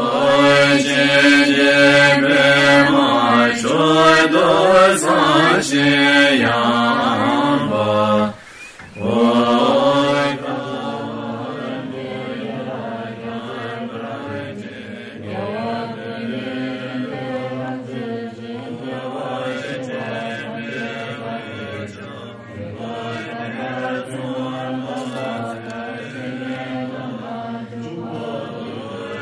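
Tibetan Buddhist liturgical chanting, a steady sung recitation in voices. It is louder for about the first ten seconds, dips briefly about eight seconds in, then carries on more softly.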